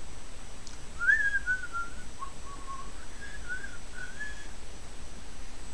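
A man whistling a short, wandering tune of a few notes, starting about a second in and stopping after a few seconds.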